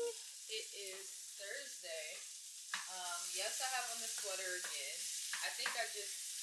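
A woman's voice, gliding and holding notes as in soft singing, over a steady sizzling hiss.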